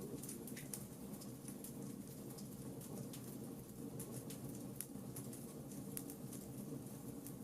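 Wood fire burning in a fireplace: irregular sharp crackles and pops over a steady low rush of the flames.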